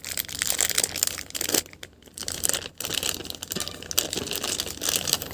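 Small plastic accessory packet crinkling and crackling as it is handled and torn open, in irregular spurts with a couple of brief pauses.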